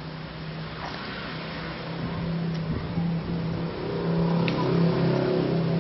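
A steady low mechanical hum that grows louder through the second half, with a faint click near the end.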